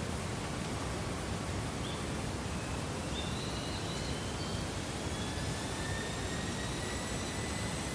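Steady outdoor hiss of rural ambience. About three seconds in, the faint whine of a distant jet airplane comes in, its tones slowly rising.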